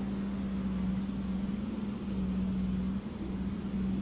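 Steady low hum over a constant hiss, heard through a doorbell camera's microphone.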